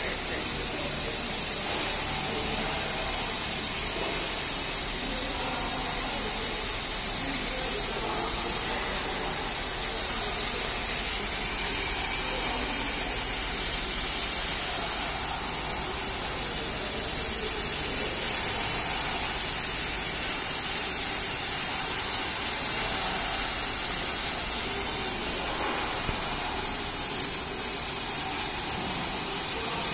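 A 260 W CO2 laser cutting machine cutting 20 mm MDF, running with a steady airy hiss as the laser head traces the cut.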